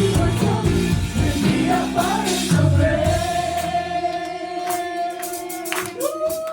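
Live gospel worship music: a band with a choir of singers. About halfway through, the low bass and drums fall away, leaving a long held sung note, and a higher note comes in near the end.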